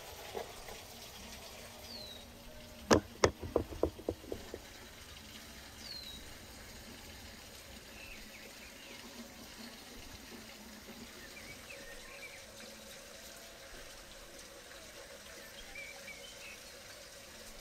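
Birds chirping over a steady outdoor hiss. About three seconds in there is a quick run of about seven sharp knocks, the first ones loudest.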